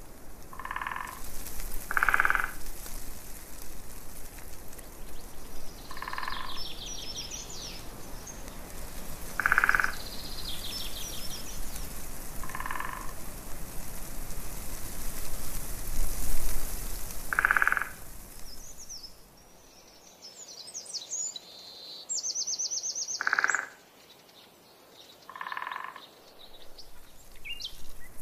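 Frogs croaking: about eight short calls, a few seconds apart. Birds trill at times over a steady hiss, which drops away about twenty seconds in.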